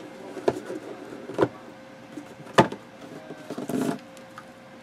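Cardboard boxes of trading cards being handled and set down: a few sharp knocks, the loudest about two and a half seconds in, and a short rustle near the end, over a faint steady hum.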